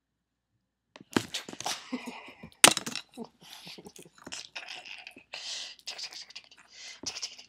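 A Dalmatian biting and chewing at a feather cat toy, starting about a second in: quick irregular crunches, snaps and rustling of feathers and bedding, with the sharpest snap at about two and a half seconds.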